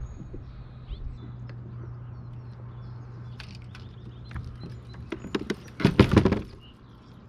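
A run of sharp knocks and clicks that comes faster and louder about six seconds in, then stops, over a steady low hum.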